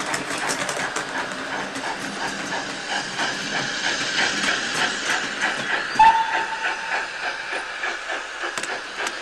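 Steam train running: a steady hiss with a fast, regular beat. A short whistle blast about six seconds in is the loudest sound.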